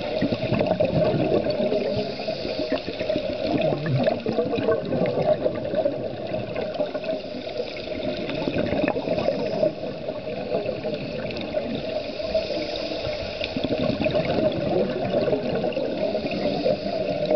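Steady underwater bubbling of scuba divers' exhaled air from their regulators, rising and falling in loudness, heard underwater.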